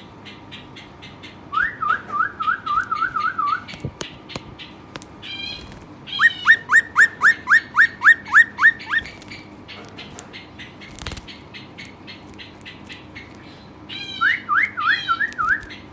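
Rock nuthatch singing: three bursts of loud, rapidly repeated rising whistles, the middle run the longest and loudest.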